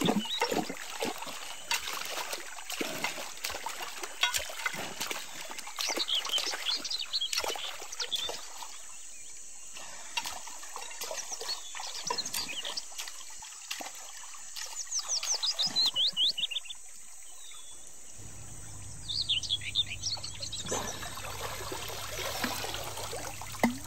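Shallow stream water splashing and trickling as hands dig and scoop gravel and sand from the stream bed, with water pouring off each handful. A bird calls in quick runs of high chirps a few times in the second half.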